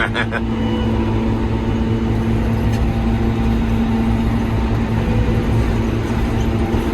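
Krone BiG M self-propelled mower running steadily under load while it mows a heavy grass crop: an even engine drone with one constant humming tone.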